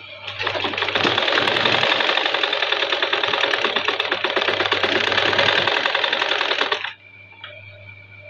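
Sewing machine running steadily as it stitches a straight seam, a fast even rattle of the needle that starts just after the opening and stops abruptly about seven seconds in.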